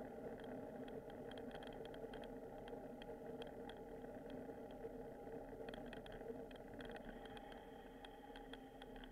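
Riding noise picked up by a bicycle-mounted video recorder: a quiet steady hum with frequent small ticks and rattles from the moving bike and mount.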